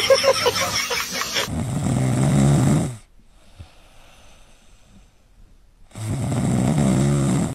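A dog snoring while asleep: two long, loud snores, the second starting about six seconds in, with quiet breathing between.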